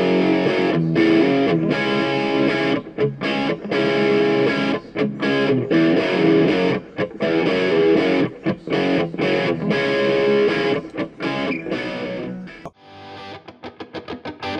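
Background music led by distorted electric guitar; near the end it drops away briefly and changes to a quicker pulsing pattern.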